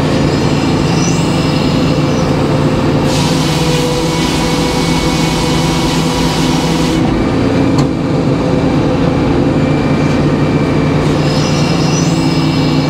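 Circular sawmill running with a new 56-inch B. H. Payne inserted-tooth blade, its drive giving a steady drone. From about three seconds in, for about four seconds, the blade rips through a yellow pine log with a loud hiss over the drone, then spins free.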